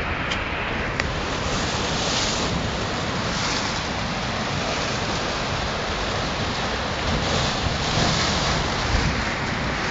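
Rough water breaking and surging, a continuous rush that swells louder a few times, most strongly near the end, with wind buffeting the microphone.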